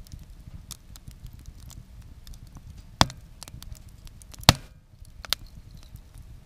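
Wood fire crackling in a wood-burning stove, with scattered small ticks and three sharp pops, the loudest about four and a half seconds in.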